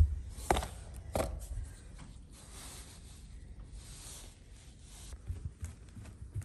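Soft rustling of bedding as a plastic Easter egg is pushed under a duvet beside a pillow, with two light clicks near the start and low handling noise.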